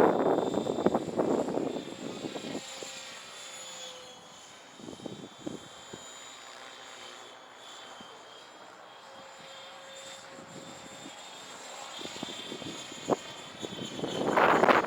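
Align T-Rex 700E 3G electric RC helicopter in flight, its rotor blade noise and a steady high electric-motor and gear whine. It is loud at the start, fades within a couple of seconds as it flies away, and swells again near the end as it comes back close.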